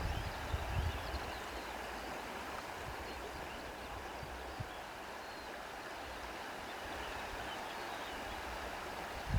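Steady rushing of a flowing stream, with a few low rumbles in the first second.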